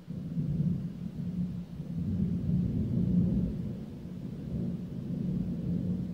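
A roll of thunder: a low rumble that starts suddenly, swells in waves and slowly eases off near the end.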